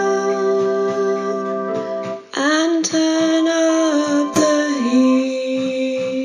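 Instrumental music with long held notes that shift in pitch now and then, briefly dropping out about two seconds in.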